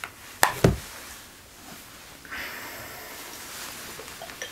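Two quick knocks in close succession about half a second in, then a couple of seconds of rustling, as things are handled.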